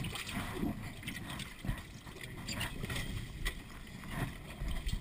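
Sunfish sailboat under way on choppy water: water splashing against the hull, with irregular clicks and knocks from the boat and its fittings.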